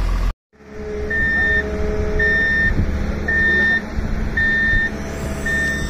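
Wheeled excavator's travel alarm beeping steadily, five half-second beeps about a second apart, over a diesel engine running. The sound cuts out briefly near the start.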